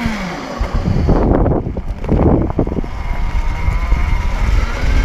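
Wind buffeting the microphone of a riding electric dirt bike, a low rumble with two stronger gusts in the first half. A faint whine from the bike's electric motor glides up in pitch near the end.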